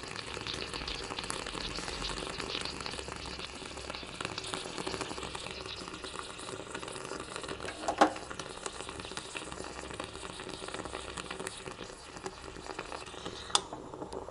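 Aluminium stovetop moka pot gurgling and sputtering as the last of the coffee is forced up into the top chamber at the end of brewing, the pot still bubbling from retained heat once the burner is off. A single sharp knock about halfway through, and a metal click near the end as the lid is shut.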